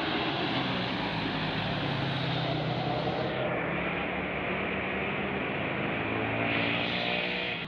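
Tour bus diesel engine running as the bus climbs past, a loud steady rush of engine and road noise, its pitch drifting slightly upward near the end.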